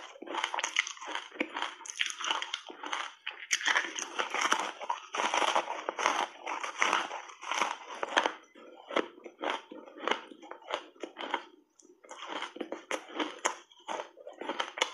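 Close-miked crunching and chewing of matcha-powder-coated ice chunks: the ice cracking and grinding between the teeth in dense, crackly crunches, with a short lull about three quarters of the way through.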